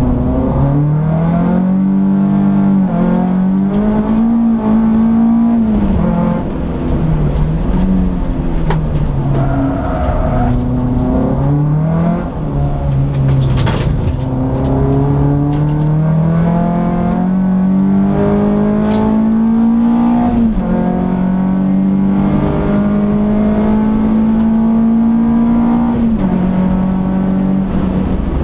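Peugeot 206 S16's 2.0-litre 16-valve four-cylinder engine heard from inside the cabin on a track lap: the revs repeatedly climb, then drop sharply at gear changes and lifts for corners. A sharp click about halfway through.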